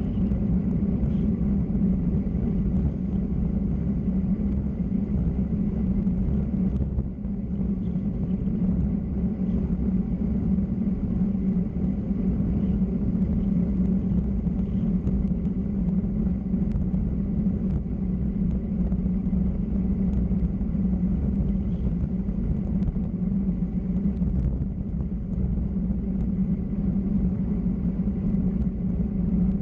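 Steady low rumble of wind and road noise while travelling down a mountain road, unbroken throughout, with a brief dip about seven seconds in.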